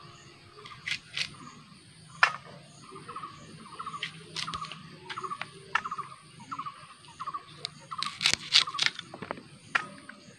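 Elephant-ear yam stalk being sliced against an upright floor-mounted blade: sharp crisp cuts at irregular intervals, one about two seconds in and a quick run of them near the end. A short chirping call repeats steadily about twice a second in the background.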